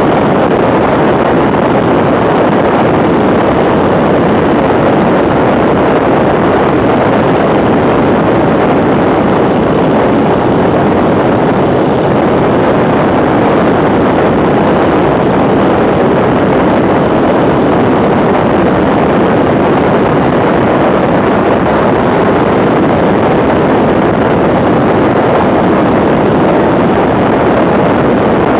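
Steady, loud rush of wind buffeting a handlebar-mounted camera on a BMW R1150R motorcycle cruising at constant speed, with the bike's boxer-twin engine running beneath it.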